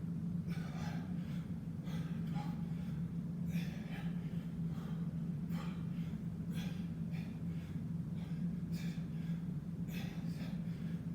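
Heavy, rapid breathing of a man exerting himself through bodyweight squats after a long set of burpees, one hard breath roughly every second. A steady low hum runs underneath.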